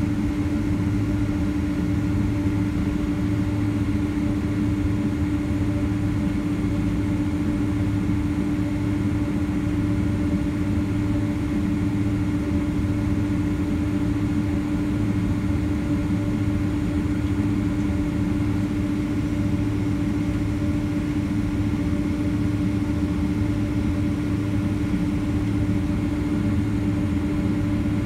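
Boeing 767-300ER jet engines idling during taxi, heard from inside the cabin: a steady drone with a strong even hum and a low rumble, holding level without spooling up.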